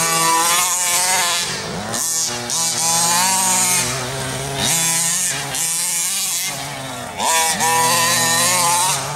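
Modified 29.5cc two-stroke petrol engine with a tuned pipe on a 1/5-scale RC monster truck, revving up and dropping back again and again as the throttle is blipped while it drives.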